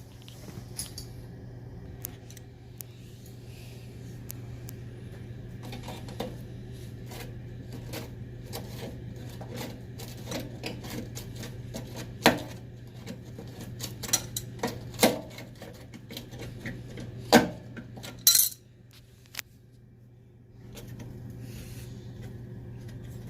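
Metal hand tools clinking and knocking against the fittings while loosening the bolts of a dishwasher booster heater's air trap, in irregular sharp clicks with a few louder knocks. A steady low hum runs underneath.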